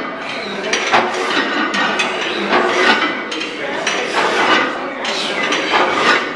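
Iron weight plates clanking and clinking on the sleeves of a loaded plate-loaded leg press sled during repetitions. The sound is a run of repeated metallic knocks and rattles.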